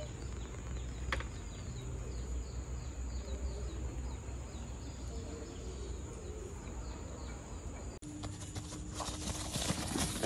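Forest ambience: a steady high-pitched insect drone with a run of short, repeated descending chirps over the first few seconds and a single click about a second in. About eight seconds in the sound changes abruptly, and a loud burst of broad noise follows near the end.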